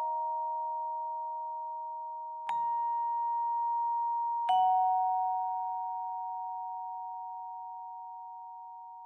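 Slow algorithmic tintinnabuli-style music of bell-like struck tones, generated by a Max/MSP patch. A new note sounds about two and a half seconds in and another about two seconds later. Each rings on and slowly fades over the tones already sounding.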